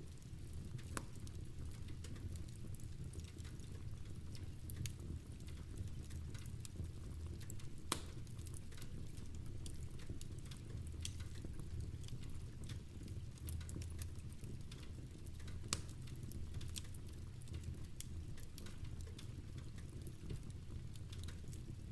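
Wood fire crackling in a fireplace, with sharp pops at irregular moments over a steady low rumble of rain.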